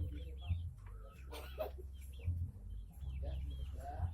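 Chickens calling: a scatter of short, high calls over a steady low hum.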